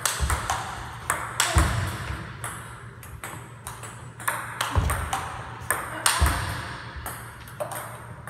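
Table tennis smashing drill: a celluloid ping-pong ball clicking off the table and the rubber bats every fraction of a second. Three heavier hits with a low thud come about one and a half, five and six seconds in.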